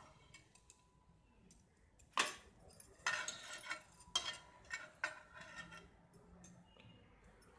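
Metal tongs clinking and scraping against a frying pan as fried fish pieces are picked up: a handful of faint, short clinks starting about two seconds in.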